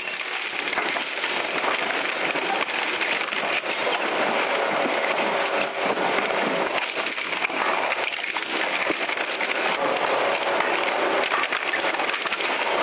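Rotary shear shredder's hooked cutter discs crunching metal engine parts: a dense, steady crackle of many small snaps and clicks.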